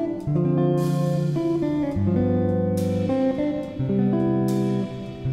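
Background music: a guitar piece with sustained chords that change about every two seconds.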